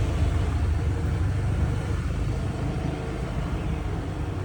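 Motorbike running along a rough road: a steady low engine hum under road and tyre noise.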